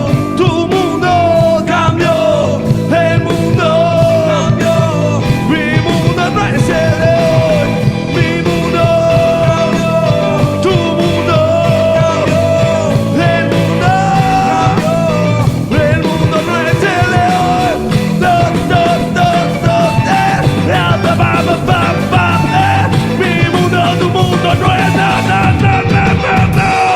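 Rock band playing live with guitar, bass and drums, a bending lead melody over a steady beat, as the instrumental close of a song. The music stops abruptly at the very end.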